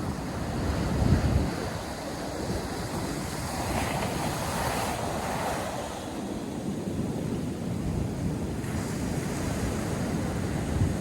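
North Sea surf breaking and washing on a sandy beach, a steady rush of waves with one wave swelling up about four seconds in. Wind buffets the microphone, with a low gust about a second in.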